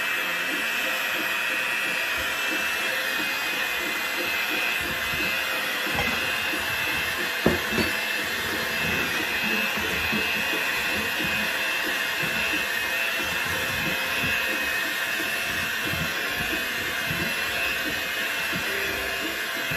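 Electric hand mixer running steadily, its beaters creaming softened butter and sugar in a ceramic bowl, with a brief sharp knock about seven and a half seconds in.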